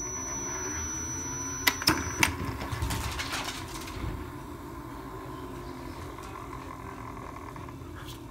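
iFetch automatic ball launcher running with a steady hum, with three sharp clacks about two seconds in as it fires a tennis ball.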